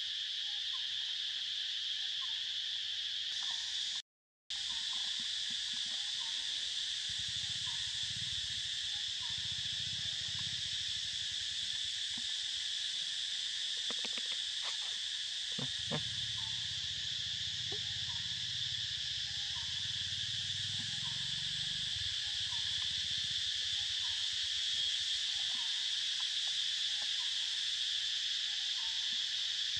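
Steady high-pitched drone of a forest insect chorus, with a faint short call repeating about once a second beneath it. The sound drops out completely for a moment about four seconds in.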